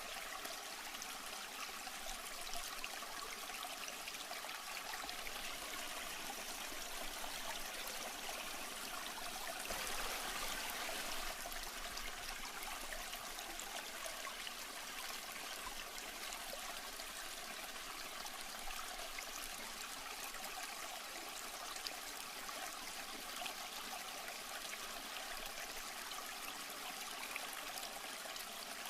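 Aquarium water running steadily, a trickling stream such as a filter outflow splashing into the tank, swelling slightly about ten seconds in.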